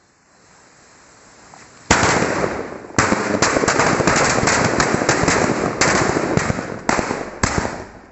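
A ring of bijli firecrackers set off on a circle of black powder. The lit powder hisses for about two seconds, then a loud bang opens a rapid barrage of cracker blasts lasting about six seconds, with several sharper bangs standing out, before it dies away near the end.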